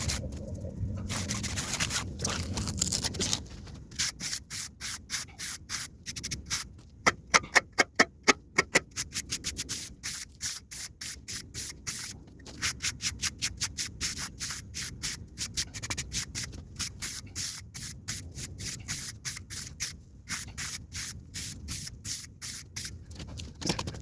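Concrete edging tool scraping along the edge of freshly poured concrete to round it over. A steady scrape for the first few seconds, then quick back-and-forth strokes, a few a second, with short pauses.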